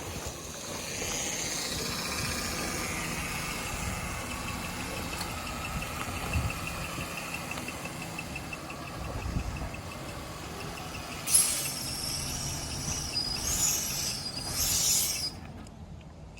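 Car engine running with a steady hiss and a light, even ticking, which is taken for a misfire. Near the end a louder hissing rush lasts about four seconds and cuts off suddenly.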